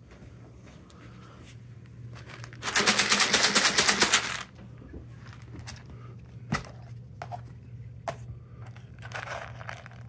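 Dry cat kibble rattling loudly for about a second and a half, a fast, even run of clicks. Near the end there is a softer rustle as a plastic scoop goes into the kibble.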